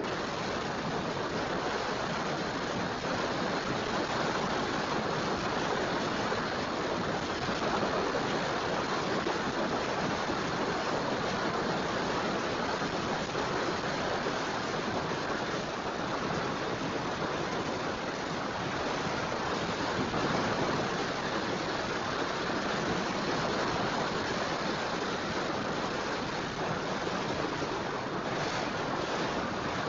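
Ocean surf washing steadily on the beach, a continuous even rush of noise with no distinct breaks.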